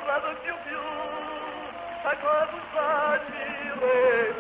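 A man singing a French song in long held notes with a wide, fast vibrato, over light accompaniment.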